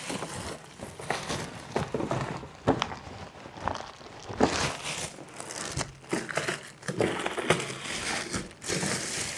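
Clear plastic bag crinkling and rustling in irregular crackles as it is pulled off an air fryer.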